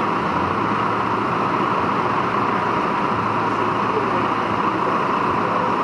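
Steady, loud mechanical hiss with a low hum, unchanging throughout.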